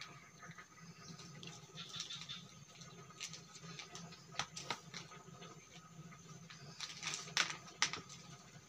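Faint snaps and soft tearing as ripe bananas are peeled and split by hand. A few sharper clicks come about four and a half seconds in and again near the end.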